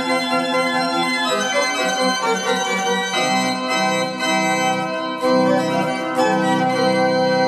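Background organ music: slow, sustained chords, with fuller chords coming in about five and six seconds in.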